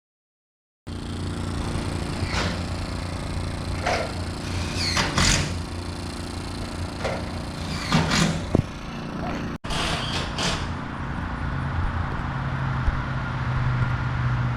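A vehicle engine running steadily, with scattered knocks and clatters over it.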